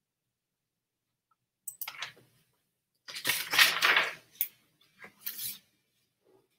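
Paper rustling as a page of a hardcover picture book is turned and the book is handled, in three short bursts, the longest and loudest about three seconds in.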